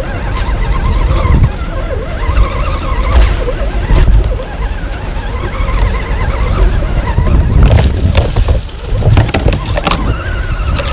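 On-board sound of an RC rock crawler driving over rock: its electric motor and gears whine, rising and falling in pitch, with knocks as the chassis jolts over the rock, several of them close together near the end. Wind rumbles on the microphone throughout.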